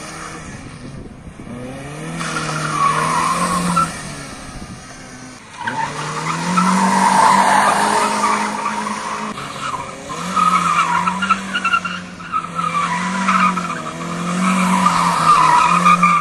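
Peugeot 208 rally car on a slalom run: its tyres squeal again and again through the tight turns, over its engine revving up and falling back between them.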